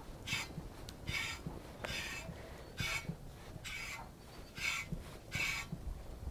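Wooden-framed grooming brush raked through a shedding cat's fur in steady strokes: a short scratchy swish about once every second, seven strokes in all.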